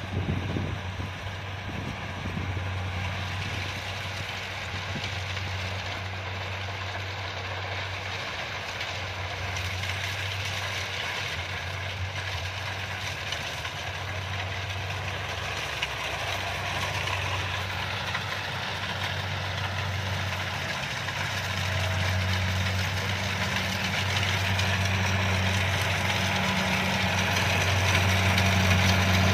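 Kubota DC-70 combine harvester's diesel engine and machinery running steadily, growing louder over the second half.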